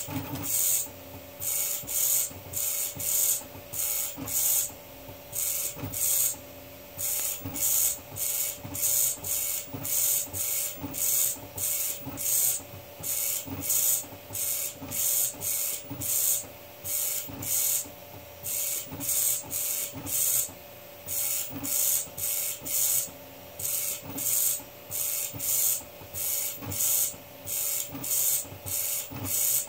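Homemade 3D-printed pen plotter drawing an infill pattern: its stepper motors drive short back-and-forth moves about twice a second, each a brief whir. A steady hum runs underneath.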